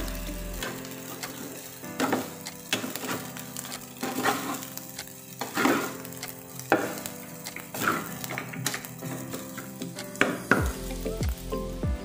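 Garlic fried rice sizzling in a non-stick frying pan while a metal spoon stirs and scrapes it, the strokes coming about once a second over a steady sizzle.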